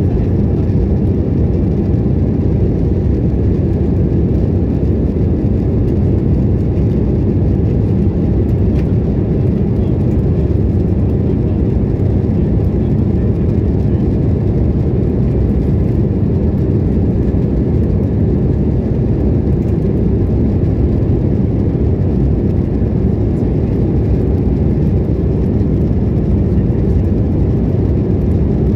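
Steady aircraft cabin noise in flight: an even, loud low rush of engines and airflow that does not change.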